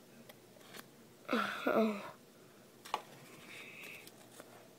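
A brief wordless voice sound, like a murmur or hum, about a second and a half in, then a single sharp click near the middle and a faint short high tone just after.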